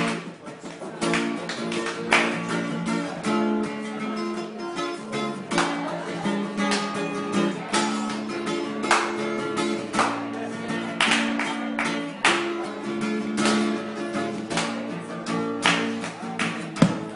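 Acoustic guitar played solo without singing: chords strummed about once a second, ringing on between the strokes.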